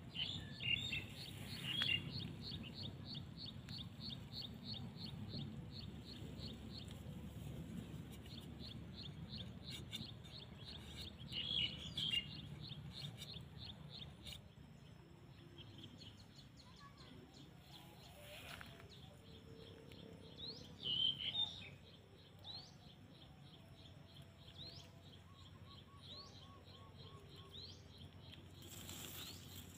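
Birds chirping. One repeats a rapid run of short high notes, about four a second, through the first half, louder chirps break in three times, and short rising chirps come about once a second near the end, over a faint low rumble.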